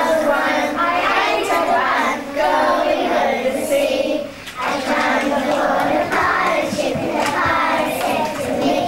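A group of young kindergarten-age children singing a song together in unison, in phrases with a short break about four and a half seconds in.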